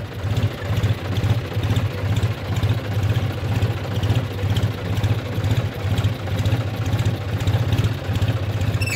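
John Deere 5050D tractor's three-cylinder diesel engine running at low revs, pulling in first gear low range with no throttle given. It makes a low, steady throb that swells and eases in a slow rhythm.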